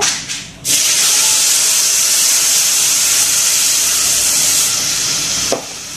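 Hot milk poured into a hot pan of ghee-roasted vermicelli, hissing and sizzling as it hits the pan. The hiss starts about half a second in and cuts off suddenly near the end.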